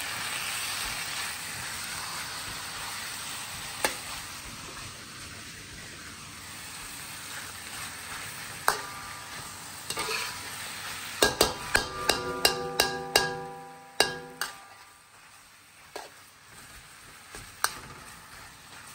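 Beef and ginger sizzling in a wok while a metal spatula stirs and scrapes it. The sizzle fades, and about two-thirds of the way through a quick run of spatula clanks sets the wok ringing.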